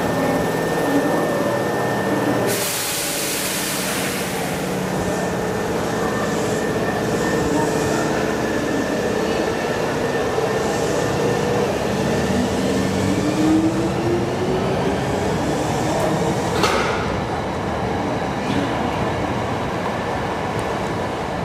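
Hankyu Kyo-train, a converted 6300-series electric train, pulling out of the platform: steady running and wheel noise on the rails. A burst of hiss comes about two and a half seconds in, a motor whine rises in pitch around the middle, and there is a short click near the end.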